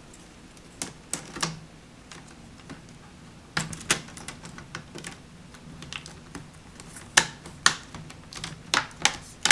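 Plastic front bezel of an HP Pavilion dv6 laptop screen being pressed onto the lid, its clips snapping into place with sharp clicks in irregular clusters, coming more often near the end.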